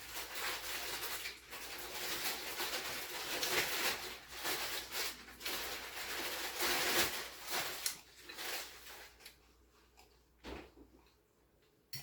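Instant ramen noodles being slurped and eaten: a noisy, hissing slurp that comes and goes, dying away about nine seconds in, followed by a couple of short clicks.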